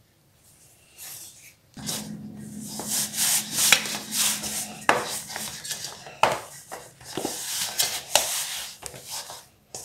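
Bread dough being stirred and kneaded by hand in a stainless steel bowl. From about two seconds in there are irregular scraping and squishing strokes, with sharp knocks as the metal bowl shifts on the steel worktop.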